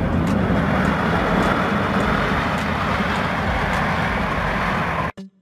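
Four jet engines of a UPS Boeing 747 freighter running at high power as it rolls along the runway: a steady, loud rush over a low rumble. The sound cuts off suddenly near the end.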